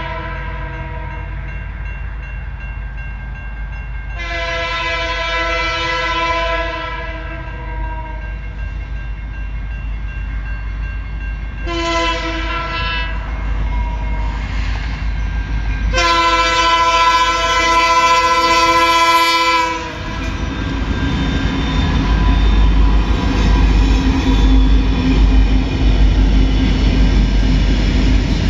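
Freight train's diesel locomotive horn sounding the grade-crossing signal as the train approaches: the end of one long blast, another long, a short, then a final long. From about twenty seconds in, the deep rumble of several diesel locomotives passing close by takes over.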